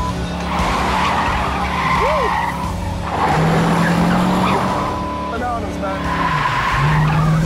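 Chevrolet Corvette V8 revving hard through a burnout on wet pavement, rear tyres spinning and squealing in stretches over the engine's drone. The engine pitch steps up about three seconds in and again near the end.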